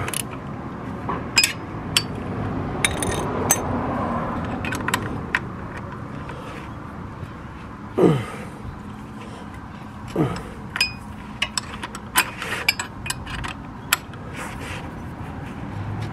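Steel combination spanner clicking and clinking on the CF Moto 450MT's lower rear-shock mounting bolt as it is tightened in the lowering position, with scrapes as the spanner is repositioned. Two short sounds slide down in pitch, about eight and ten seconds in.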